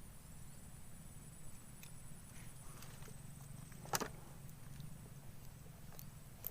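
Steady high-pitched insect drone over a low rumble, with a few faint ticks and one sharp click about four seconds in.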